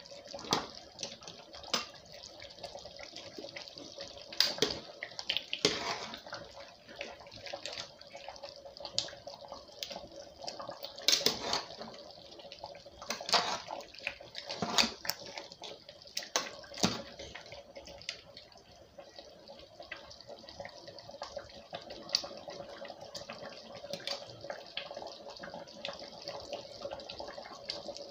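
Soup being ladled from a metal pot into a bowl: thick liquid slopping and pouring, with scattered clinks and scrapes of the metal ladle against the pot and bowl, over a faint steady hum.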